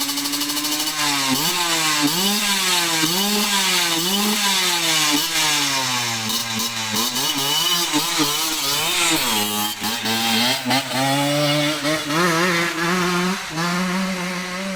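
Two-stroke Kawasaki Ninja 150 engine in a Honda Win motorcycle, revving up and down over and over as the throttle is worked, with a buzzy two-stroke note.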